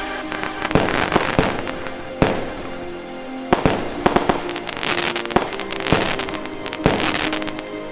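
Fireworks going off: a string of sharp bangs at irregular intervals, some in quick clusters of two or three, over continuous crackling.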